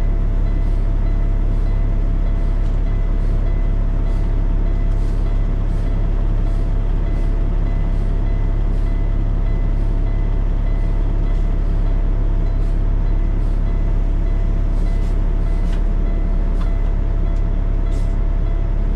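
Semi truck's diesel engine idling steadily, heard from inside the cab, with a faint regular ticking over the engine.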